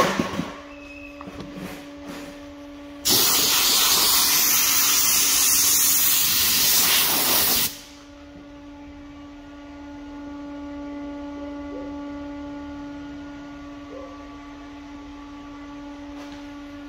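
A loud, even hiss of rushing air starts abruptly about three seconds in, runs for nearly five seconds and cuts off sharply. A few knocks come before it, and a steady hum follows.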